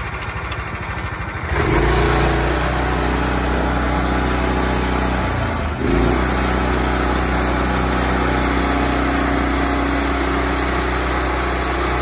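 Petrol engine of a Frontier portable band sawmill running. It picks up sharply to a steady higher speed about a second and a half in, dips briefly near the middle and comes back up, then runs steadily.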